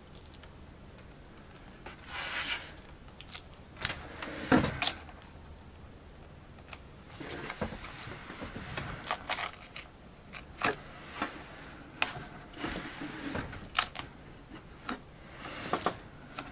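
Hands handling and pressing a clear plastic transfer-paper sheet with a vinyl stencil onto a wooden board: intermittent crinkling and rustling of the plastic sheet, with scattered light clicks and taps.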